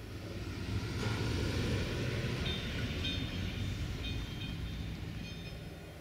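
A train rolling past on the rails: a low rumble that swells quickly, peaks about a second in, then slowly fades. Brief high squeals from the wheels come in clusters through the middle and later part.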